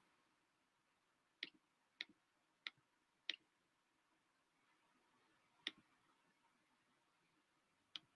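Near silence broken by six faint, sharp clicks at irregular intervals, the loudest about three seconds in.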